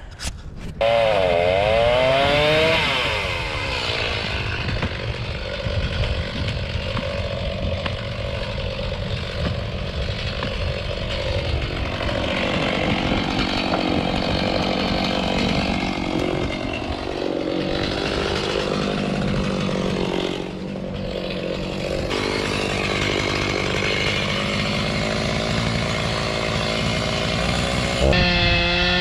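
Chainsaw revving up about a second in, then running under load as it cuts into the rotten wood of a dead tree, its pitch rising and falling. It revs up again near the end.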